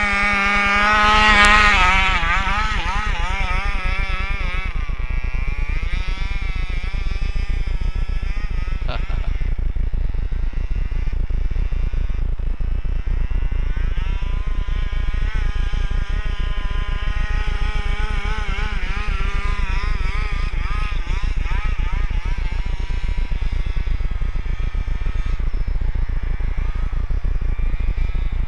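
27cc two-stroke gas engine of a large-scale RC truck revving up and down as it drives through snow, loudest about a second in and fainter as the truck gets further away; a tired weed-eater motor. A single sharp click about nine seconds in.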